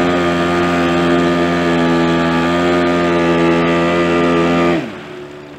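Outboard motor pushing an inflatable boat, running steadily at speed. Near the end it is throttled back: its pitch drops sharply and it falls to a much quieter idle.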